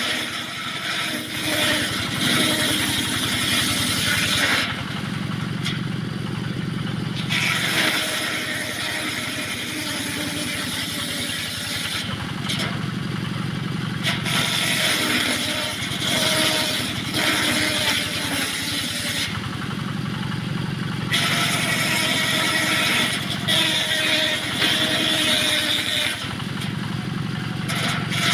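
Engine-driven homemade circular sawmill running, its blade cutting through wood in four passes of about four to five seconds each. The engine hum carries on steadily through the short gaps between cuts.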